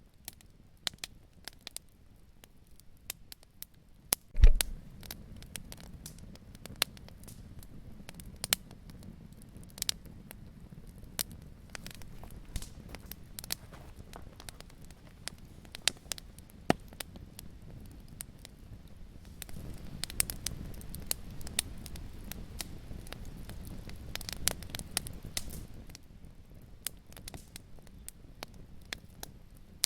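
Wood fire in a fireplace crackling, with irregular sharp pops and snaps over a low steady rush of flame, and one louder, deeper pop about four seconds in.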